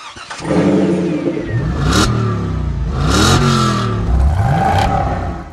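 Car engine revving, its pitch rising and falling several times, with two loud whooshes about two and three seconds in.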